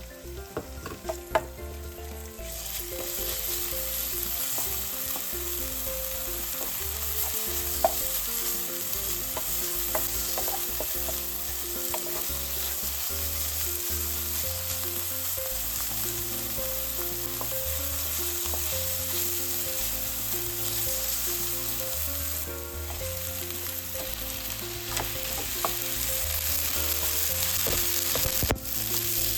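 Food frying in a hot pan, a steady sizzle that starts about two and a half seconds in after a few taps of a utensil, with occasional clicks of stirring.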